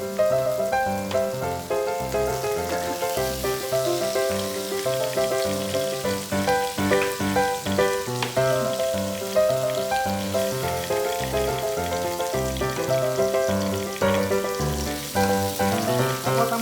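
Background music with a melody and a steady, moving bass line, over the sizzle of pork frying on a grill.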